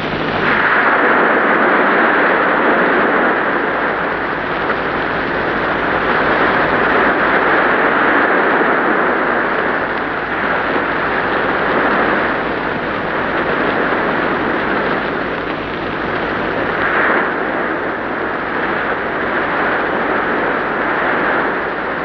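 Sea surf: waves rushing and breaking, a steady roar that swells and eases every few seconds.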